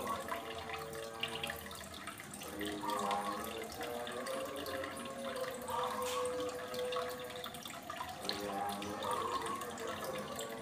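Aquarium water running and splashing steadily, as from a filter outflow or air bubbling into the tank. Faint held tones in the background shift in pitch every few seconds.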